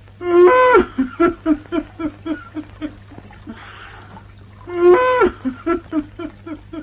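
Cartoon elephant crying twice: each time a loud wailing sob rises in pitch and then falls away, followed by a run of fading plinking drips like tears dropping into a puddle. A breathy sniff comes just before the second sob.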